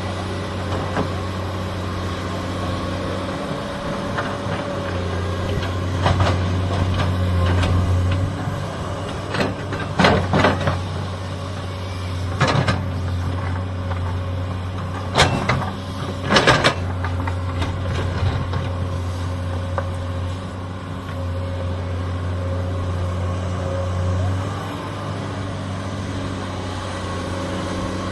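Hydraulic excavator's diesel engine running steadily under load, with a handful of sharp knocks and scrapes as the bucket works rock and soil, loudest about ten and sixteen seconds in.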